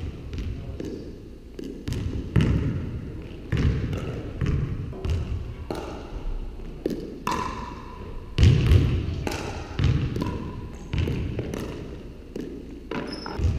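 A basketball bouncing on a hardwood gym floor, mixed with the sharp pops of pickleball paddles hitting a plastic ball. The irregular thuds and pops echo in the large gym, with the heaviest thud a little past halfway.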